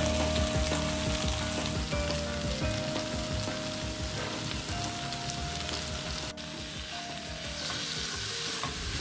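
Spiced chicken frying in a non-stick pan with its liquid cooked off, sizzling steadily as it is stirred.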